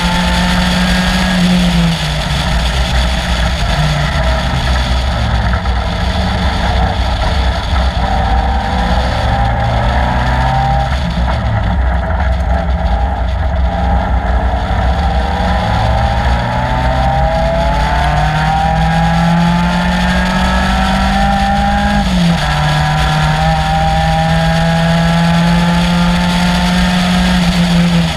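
Caterham Seven's 2.3-litre Ford Duratec four-cylinder engine at racing speed. Its pitch climbs steadily through the revs and falls back several times, with one sharp drop about three quarters of the way through, as at an upshift.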